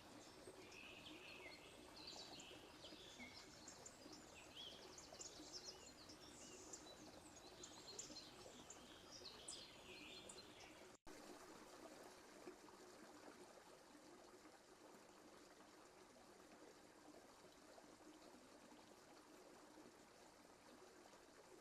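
Faint woodland birdsong, many short chirps and song phrases from several small birds over a steady background hiss; about halfway through it cuts off sharply, leaving only the faint steady hiss.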